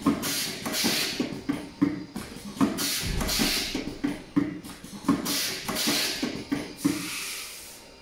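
Pneumatic fibre-optic cable jacket stripping machine venting compressed air in about six short hissing blasts, each starting with a click.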